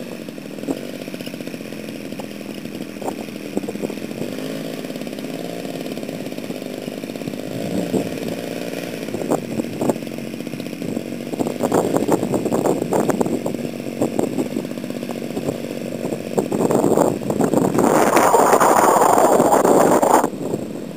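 Engine of a radio-control Stearman biplane running as the model taxis on grass, its pitch rising and falling with the throttle. It gets louder, with a rushing sound, in the last few seconds.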